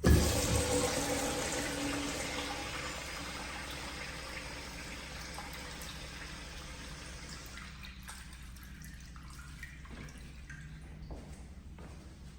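A restroom toilet fixture flushing. A sudden loud rush of water starts at once, then tapers off over about ten seconds as the flow dies down.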